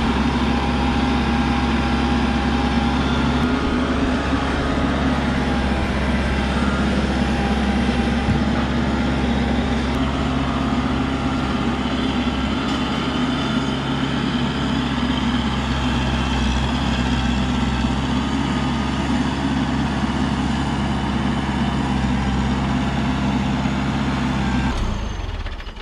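Kubota wheel tractor's diesel engine running steadily at one constant speed while the tractor carries a heavy log on its loader's pallet forks. The sound cuts off sharply just before the end.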